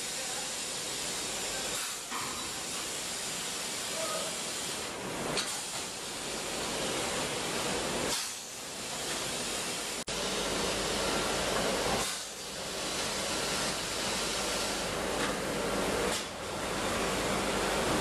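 A steady hissing rush of noise that dips briefly a few times.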